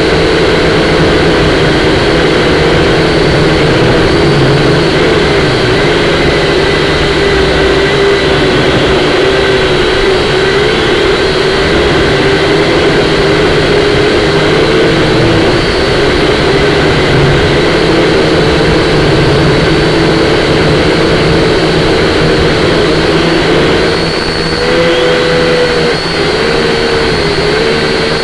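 Syma X5C-1 quadcopter's small motors and propellers whining steadily, the pitch wavering up and down as the throttle shifts, with a rise a little before the end. A steady rush of wind runs underneath.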